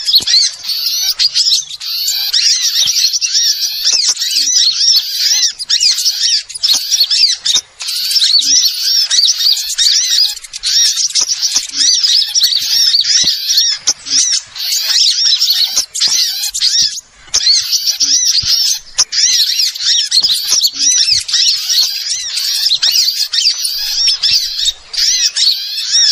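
A bird-lure recording of small birds chirping and twittering, densely overlapping and high-pitched, played to call in small birds such as sunbirds. It breaks off briefly twice, about 8 and 17 seconds in.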